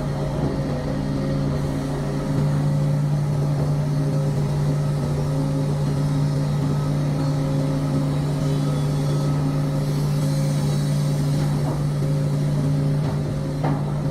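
An engine or motor running steadily at one pitch, a continuous drone that gets a little louder about two seconds in.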